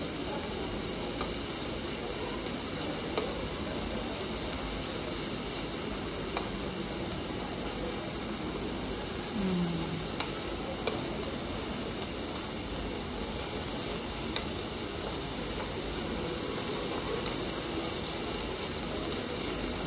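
Meat sizzling on a Korean barbecue tabletop grill plate, a steady hiss, with a few light clicks of metal tongs turning the pieces.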